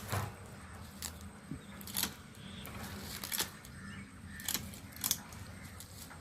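Hand pruning shears snipping through twigs and leaves: about six sharp, irregular snips, two of them close together around the middle.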